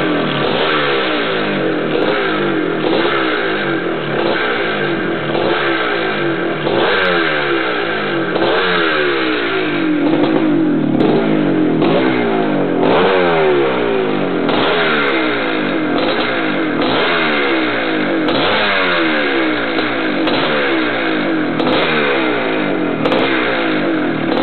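1981 Maico 490's air-cooled single-cylinder two-stroke engine running, revved up and down over and over with quick throttle blips. This is the sound of a healthy, well-built engine.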